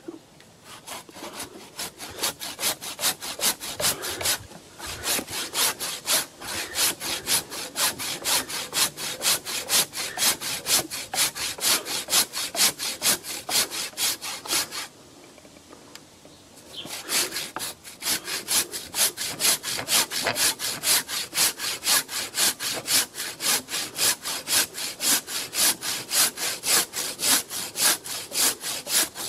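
Fine-toothed handsaw cutting through wet plum wood in quick, even back-and-forth strokes, about three a second. The sawing stops briefly about four seconds in and again for about two seconds near the middle. The small teeth are poorly suited to wet wood.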